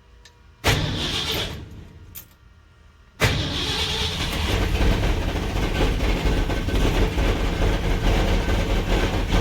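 1966 Ford F-100's V8 being started: a short burst of cranking about a second in that dies away without catching, then a second try a little after three seconds where it catches at once and runs steadily. This is the first start after the electric fuel pump's wiring was redone.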